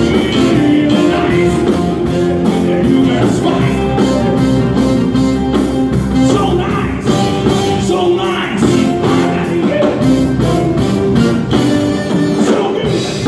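Live rock band playing: electric guitar and drums with an even cymbal beat, and a singer's voice over them.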